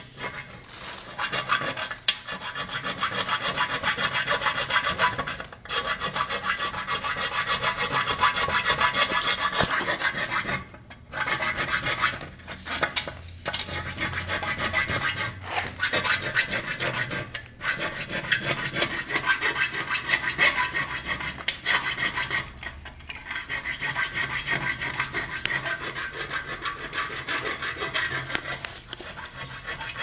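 Mini hacksaw cutting through the metal column (transmission housing) of an old Brastemp top-loading washing machine: rapid back-and-forth saw strokes, stopping briefly a few times along the way.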